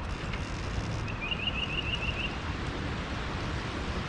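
Wind rumbling on the microphone, with a bird's short trill of about seven quick rising chirps about a second in.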